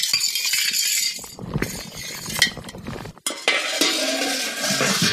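Metal ladle stirring and scraping in a cooking pot of kheer, with a few sharp clinks.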